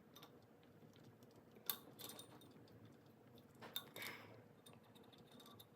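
Near silence with a few faint, sharp clicks and light scraping of small metal clock parts as the minute hand is worked straight up off the quartz movement's shaft. The two clearest clicks come about 1.7 s and 3.7 s in.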